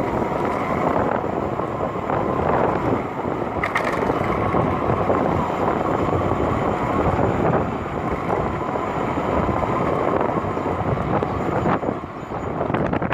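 A vehicle's engine and travel noise running steadily, with wind buffeting the microphone.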